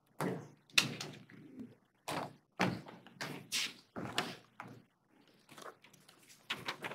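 About ten irregular knocks, thuds and taps spread over several seconds, as of objects being handled, moved and set down on a table.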